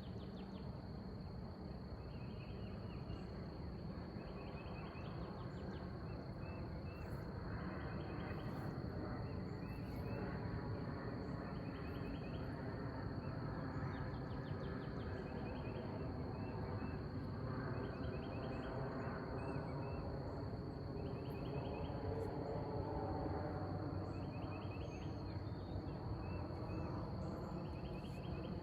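Night insects: a steady high-pitched trill with short cricket-like chirps repeating about once a second, over a steady low rushing noise.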